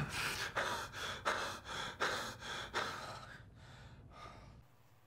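A man panting hard, quick gasping breaths about two a second that grow quieter and fade out about four and a half seconds in.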